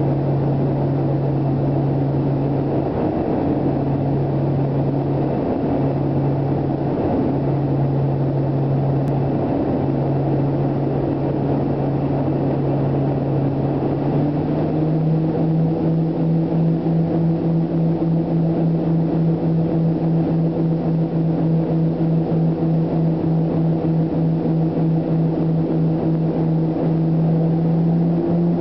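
Let L-410's twin turboprop engines and propellers droning in the passenger cabin on landing approach. About halfway through the pitch steps up slightly and the drone starts to throb with an even beat, about two or three pulses a second.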